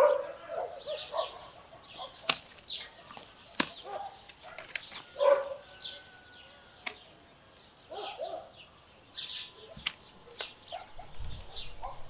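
Hand pruning shears snipping through peach branches: several separate sharp clicks spaced a second or more apart, among birds chirping and calling.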